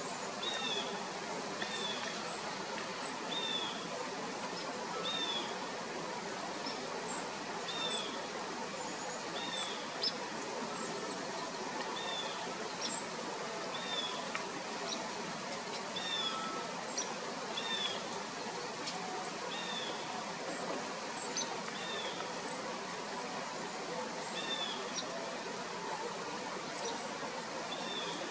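Small birds calling over a steady outdoor hiss: one repeats a short down-slurred note about once every second or so, and other brief high chirps come in between.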